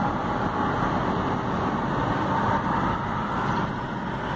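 Steady road noise heard inside a moving car at highway speed: tyre and engine noise with no sudden events.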